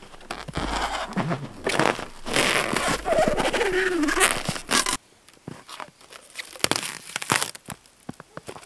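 Plastic stretch film being pulled off its roll and stretched across a wooden pallet: a loud crackling rustle with a brief wavering squeak. It cuts off suddenly about five seconds in, and scattered crunches and clicks follow.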